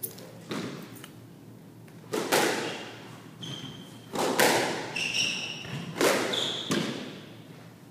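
Squash rally: the ball is struck hard by the rackets and hits the court walls about five times, each strike ringing briefly in the court. Short high squeaks from the players' shoes on the wooden floor come between the strikes.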